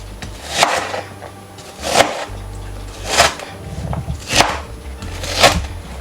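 Knife cutting onions on a chopping board: five separate strokes, about one a second.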